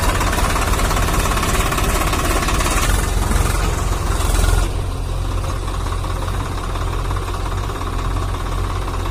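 Swaraj 744 XT tractor's three-cylinder diesel engine running steadily. A little under five seconds in, the sound drops in level and turns duller.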